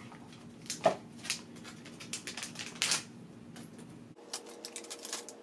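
A pregnancy test's sealed wrapper being crinkled and torn open by hand: a run of irregular crackles and clicks.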